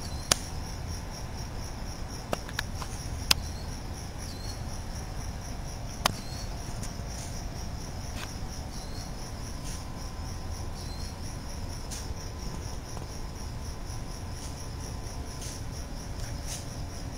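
Crickets chirping in a steady, fast pulsing trill, with a handful of sharp clicks in the first six seconds.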